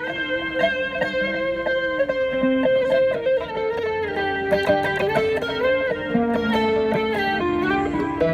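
Live band music led by a guitar playing a sustained, melodic instrumental line.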